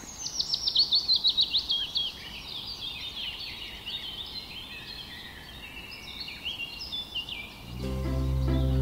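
Songbirds chirping and singing: a quick run of sharp falling notes, then a looser mix of calls. Music with a steady low note comes in near the end.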